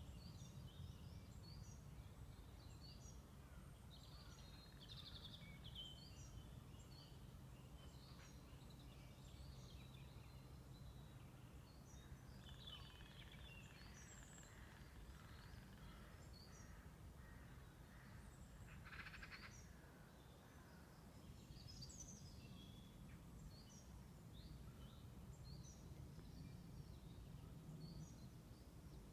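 Faint ambience: many short, high chirps scattered throughout, over a low steady rumble.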